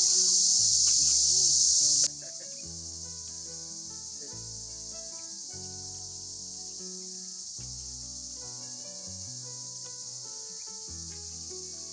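A steady, high-pitched chorus of insects such as crickets or cicadas, loud at first and then dropping suddenly to a quieter level about two seconds in. Soft background music with slow low notes plays underneath.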